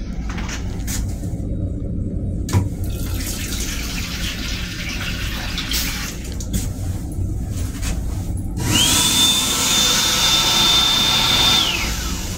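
Water running from the sink faucet in an M7 commuter-train restroom, over the train's steady low rumble with scattered clicks. About two-thirds of the way through, a louder rushing hiss with a steady high whine starts, holds for about three seconds, then dies away with the whine dropping.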